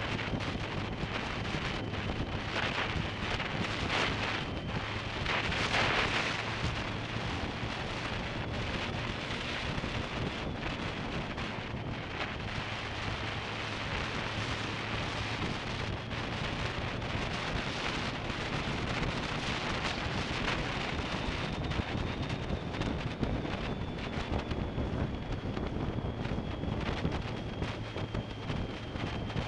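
Wind rushing over an action camera's microphone on a motorcycle at road speed, with the steady drone of a 2005 BMW K1200S's inline-four engine beneath it. A louder gust comes about five to six seconds in.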